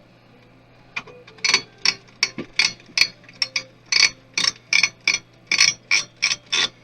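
A run of short ratcheting clicks, about three a second, starting about a second in, from a hand tool or mechanism being worked while a desktop PC is taken apart.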